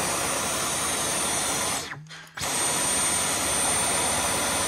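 Dyson V12 cordless stick vacuum running with its laser head fitted: a steady rush of air with a thin high whine. About two seconds in it is switched off, the whine falling away as the motor spins down, then it comes back on half a second later.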